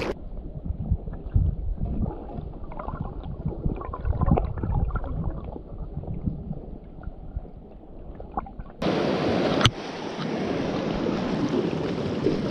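River water heard through a submerged microphone: muffled gurgling and dull knocks. About nine seconds in the microphone comes out of the water and the shallow river's rushing flow becomes loud and bright, with a sharp click just after.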